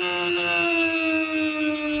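Small high-speed electric power tool running with a steady whine, its pitch sinking slightly as it works.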